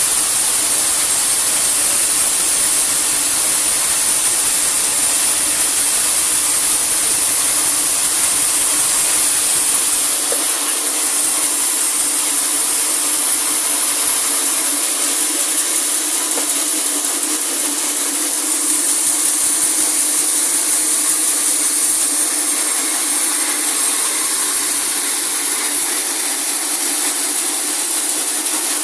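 Sawmill band saw running through a large teak log: a steady, loud, high-pitched hiss with a hum underneath.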